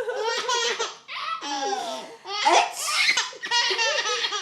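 A young child laughing hard in four high-pitched bursts.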